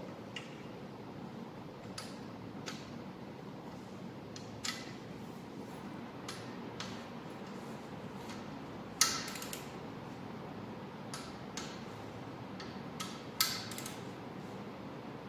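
Torque wrench tightening block stiffener plate bolts: scattered light ticks of the ratchet and socket, and two sharp clicks, about nine seconds in and again four seconds later, as the wrench reaches its 45 N·m setting.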